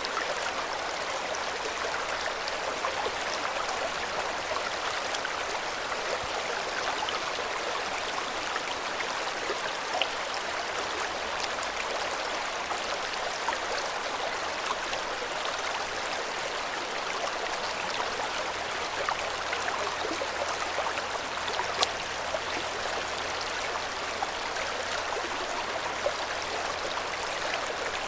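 River water flowing over rocks: a steady rush with small splashes and trickles flicking through it.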